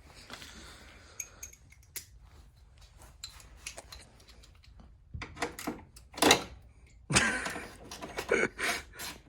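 Metal and plastic car parts being handled as a part is worked loose and pulled off, with scattered light clicks and clinks, a sharp knock about six seconds in, and a denser clatter from about seven seconds on.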